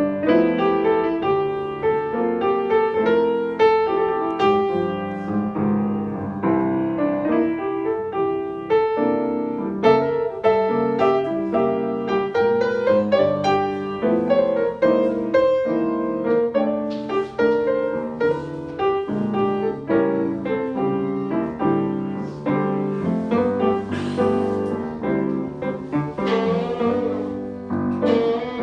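Piano playing a blues tune.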